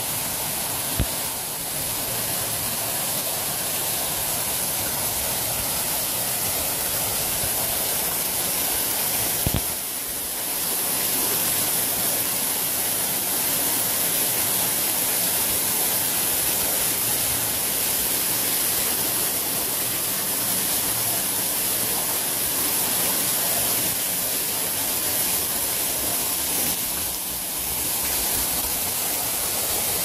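Water pouring down an artificial rock waterfall and splashing into its pool: a steady rushing noise. Two brief knocks sound, about a second in and near the ten-second mark.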